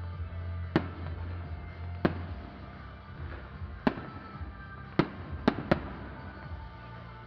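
Aerial fireworks bursting in sharp bangs, about six in all, with a quick pair near the end, over electronic dance music with a steady bass.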